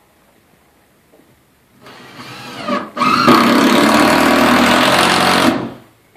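Cordless drill/driver driving a screw up into a ceiling framing board: the motor starts slowly about two seconds in, checks briefly, then runs at full speed for about two and a half seconds and stops near the end.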